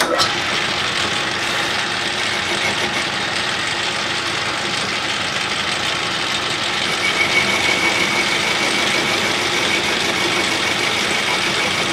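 Metal lathe running with a boring bar cutting inside a cast-iron bore: a steady machining noise. A thin high-pitched tone joins about halfway through.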